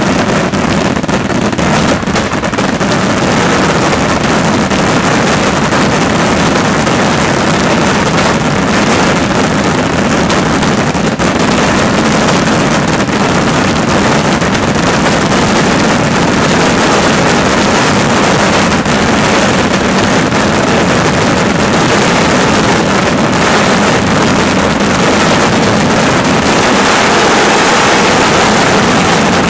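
A daytime fireworks barrage of firecrackers going off in rapid, unbroken succession, so fast that the bangs run together into a steady loud rattle. It grows a little louder near the end.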